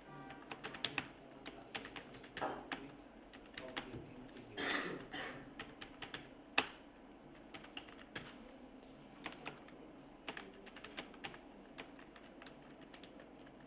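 Typing on a computer keyboard: irregular key clicks at an uneven pace as a passage is copied. A brief rush of noise comes about four and a half seconds in, and one sharper, louder click comes about two seconds later.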